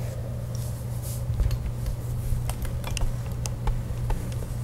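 Steady low hum with scattered faint clicks and light taps.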